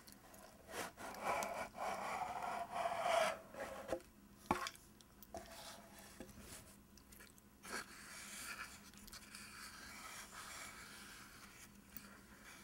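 Cardboard gift box being opened, its lid sliding off with a scraping rub and a short falling squeak, then a sharp tap about four and a half seconds in. After that, fingernails lightly scratching and tracing over the paper-labelled tube inside the box.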